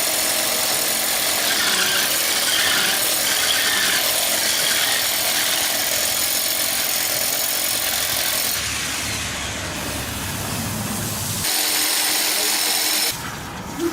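A power tool running steadily with a high whine. Its sound changes and lowers partway through, as if under load, picks up again briefly, then stops near the end.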